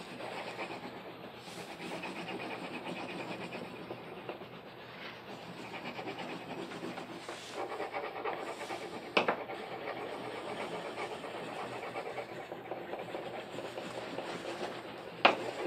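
Wax crayon rubbing back and forth on paper in quick, even strokes, coloring in an area. Two sharp clicks stand out, one about nine seconds in and one near the end.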